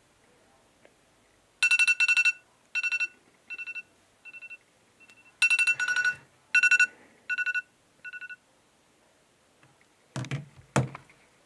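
A phone sounding an electronic alert tone: groups of rapid beeps on one high pitch, repeating and stopping about eight seconds in. Near the end, two dull knocks as the phone is handled and picked up.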